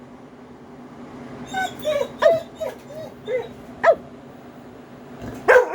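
A dog whining and yipping in a run of short, high calls, then a louder burst of barking near the end.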